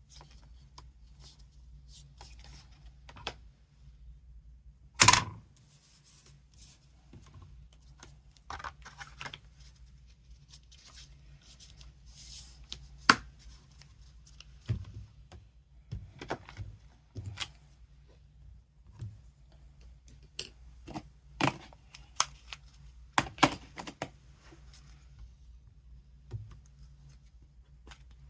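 Craft handling at a MISTI stamp-positioning tool: scattered clicks, taps and knocks of the lid, stamp and card being set down and pressed, with one loud knock about five seconds in and a cluster of sharper knocks near the end.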